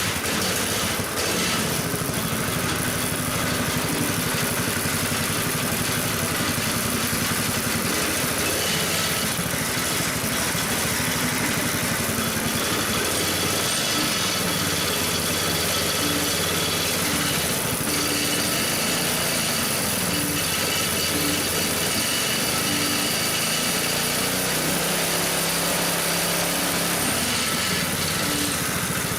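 Predator 212cc single-cylinder four-stroke engine running on a motorized bike with a two-speed belt drive. It runs steadily, with the engine speed rising and falling a few times.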